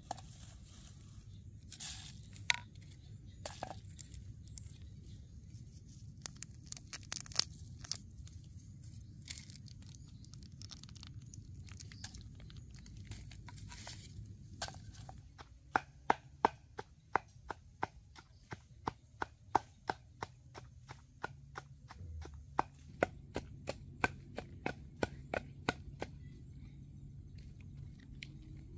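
Food preparation in a mortar: scattered taps and clicks as chilies, garlic and palm sugar go into the bowl, then, about halfway through, a steady run of sharp knocks, two to three a second, typical of a pestle pounding the chili paste.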